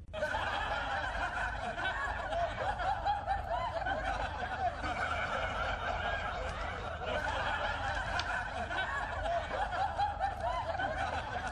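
Continuous dense laughter and snickering from many people at once, many overlapping laughs without a break, over a low steady hum.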